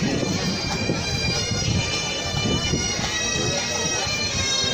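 Bagpipes of a marching pipe band playing over their steady drone, with people in the crowd talking.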